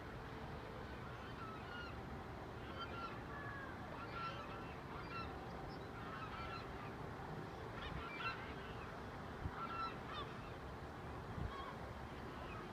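Birds calling with short honks, repeated irregularly over a steady low rumble.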